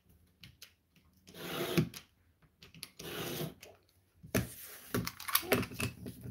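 Utility knife blade drawn along a steel ruler, slicing through paper on a cutting mat in two scraping strokes. These are followed by a clatter of knocks and clicks as the knife and ruler are handled.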